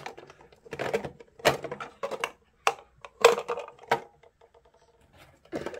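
Small plastic toy pieces and a toy locker's plastic parts clicking and knocking as hands put things back in place: about six sharp clicks, roughly half a second to a second apart.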